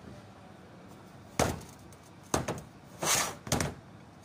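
An automotive A/C compressor being handled and set down on a workbench: four sharp metal knocks and clunks about half a second to a second apart, the third drawn out like a short scrape.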